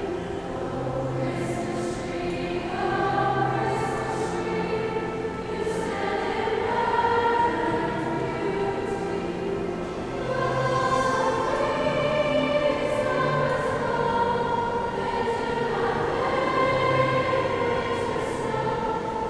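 A high school choir singing, many voices holding long chords together and moving to new chords every second or two.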